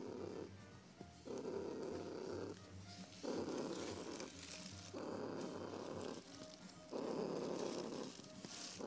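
A cat purring close up in even, rhythmic cycles, each lasting about a second with a short pause between, about five in all.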